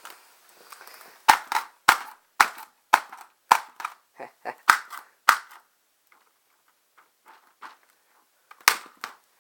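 A run of sharp hits on the airsoft gun's packaging as it is forced open, about two a second for some four seconds, then a single hit near the end.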